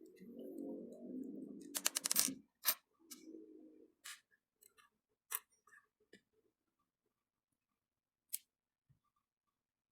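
Small clicks and light rattling of spinning-reel parts being handled and taken apart, with a quick run of clicks about two seconds in, then scattered single clicks that thin out.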